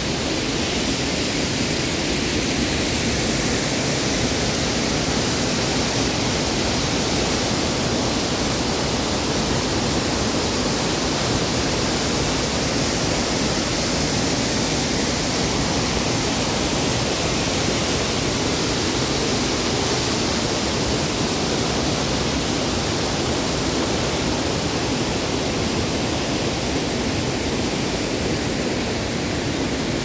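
Steady, loud rush of water from a large waterfall, an even noise with no breaks.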